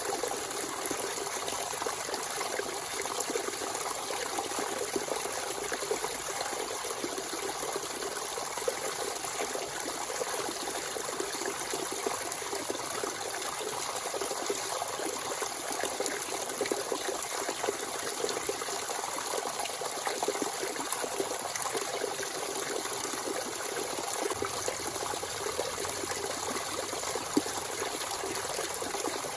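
Natural spring water running and trickling steadily, with a continuous splashing hiss.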